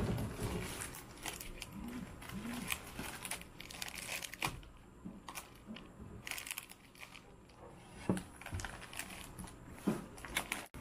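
Plastic snack wrappers crinkling and being torn open, with irregular rustling crackles throughout.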